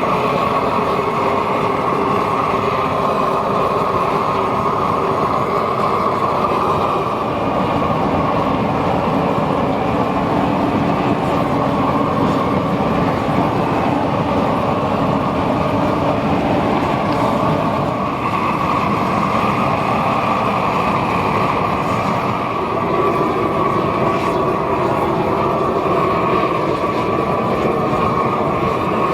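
Norwood portable band sawmill running steadily, loud and continuous, with its tone shifting a few times, around 7, 18 and 23 seconds in.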